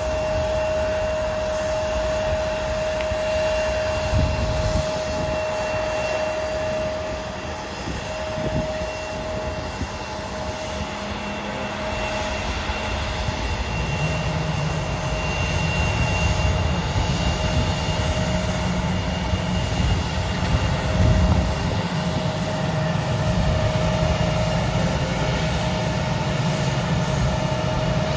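Embraer 170 jet airliner on the apron during pushback, giving a steady high whine over a low rumble; the rumble grows louder about halfway through.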